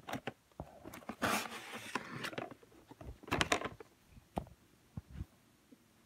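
Handling sounds as a box is pulled out from under a cabinet: scattered knocks and clicks, with two louder stretches of scraping and rustling, about a second in and again about three seconds in.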